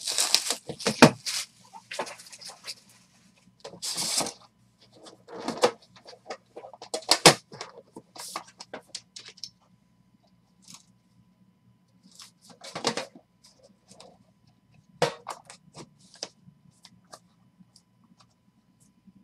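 Hands unwrapping and opening a trading card box: crinkling plastic wrap and cardboard scraping in irregular bursts, busiest in the first eight seconds. Then come sparser clicks and rustles as the cards are slid out and handled.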